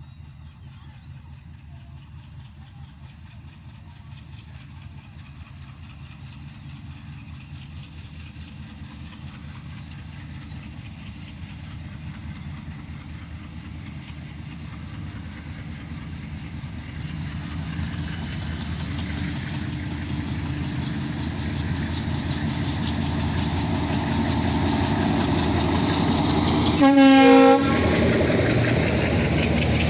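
A diesel locomotive hauling a passenger train runs toward the listener, its engine and wheel noise growing steadily louder. Near the end it gives one short horn blast of about half a second, and the coaches then roll past on the rails.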